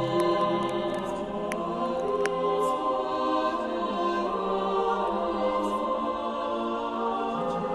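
Background music: slow, sustained chords that change every few seconds.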